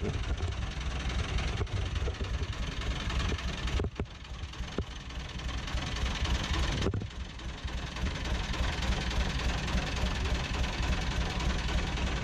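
Narrowboat engine running steadily with a low, even throb.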